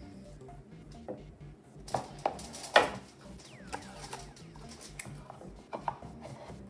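A cardboard watch presentation box and its insert being handled: a run of light knocks, taps and scrapes, the loudest a little under three seconds in.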